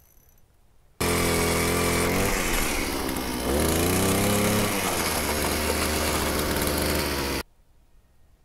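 Power ice auger drilling a hole through lake ice: its motor runs steadily, rises in pitch partway through, and starts and stops abruptly.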